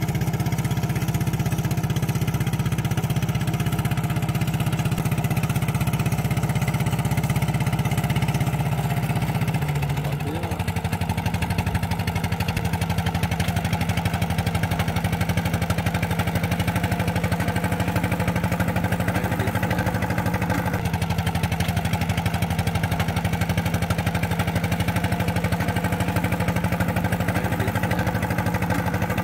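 Kubota two-wheel hand tractor's single-cylinder diesel engine running steadily under load while ploughing a flooded rice paddy. Its note shifts and dips slightly about ten seconds in, then settles back into an even pulsing run.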